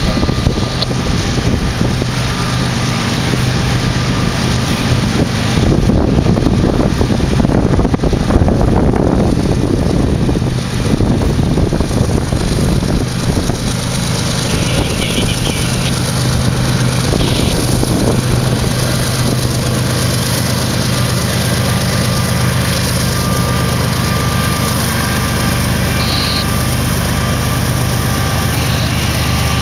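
Two BNSF EMD SD70-series diesel-electric locomotives working hard under load, their engines roaring steadily as they approach and pass close by. The sound swells loudest a few seconds in and stays heavy as the units draw alongside.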